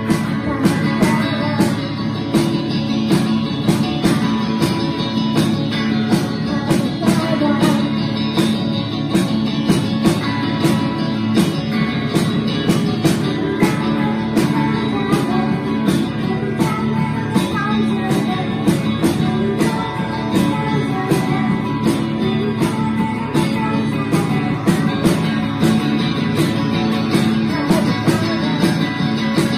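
Live rock band playing: guitars over a steady, even drum beat with cymbal hits.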